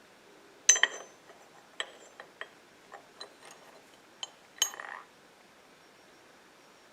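Steel lathe cutting tools clinking as they are handled and set down on a hard surface. A sharp ringing clink comes just under a second in, followed by several lighter clicks and taps, and a second ringing clink with a brief rattle near five seconds.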